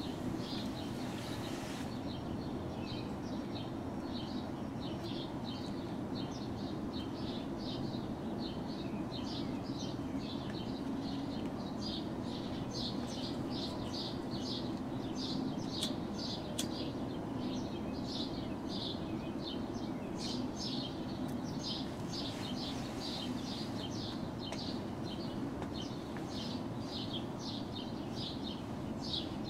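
Small birds chirping, short high notes repeating several times a second, starting about two seconds in and going on steadily over a constant low background hum.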